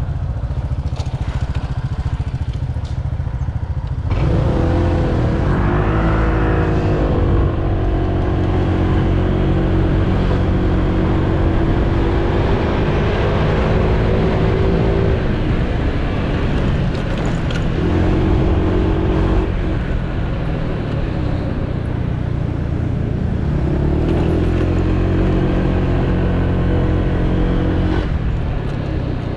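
Honda PCX 125 scooter's single-cylinder engine pulling away from low speed about four seconds in, revs rising and then holding steady under its automatic drive. The revs fall away, pick up briefly, then climb again before easing off near the end, over a steady low rush of wind and road noise.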